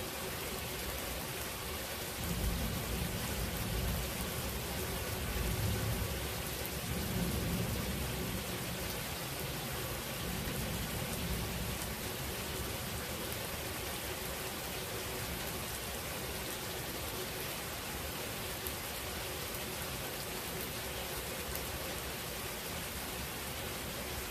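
Steady rain falling during a thunderstorm, with a low roll of thunder rumbling in about two seconds in and dying away by about twelve seconds.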